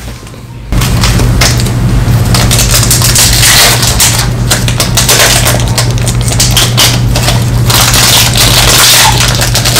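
A Pokémon Burning Shadows foil booster pack being crinkled and torn open close to the microphone: loud, dense crackling starting abruptly about a second in.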